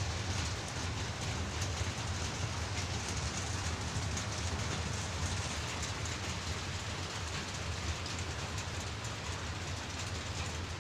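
Heavy downpour with hail: a steady rush of rain with scattered sharp ticks, over a low steady rumble.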